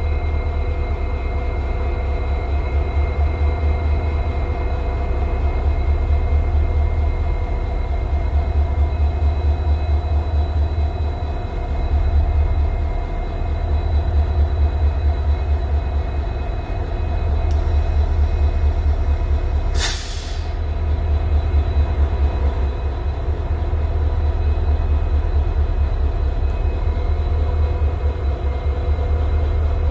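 Twin WDG4 diesel-electric locomotives idling. Their 16-cylinder EMD 710 two-stroke engines give a deep, pulsing rumble, with steady whining tones above it. About two-thirds of the way through there is a short, sharp hiss.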